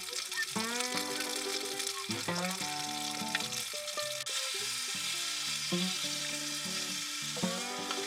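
Shredded cabbage sizzling in a frying pan as it is stir-fried, the sizzle growing stronger about halfway through, under background music of held melodic notes.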